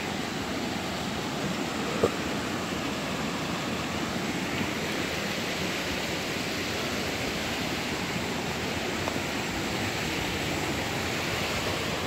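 Steady rush of running water from a rocky creek, an even hiss without rhythm, with one brief tap about two seconds in.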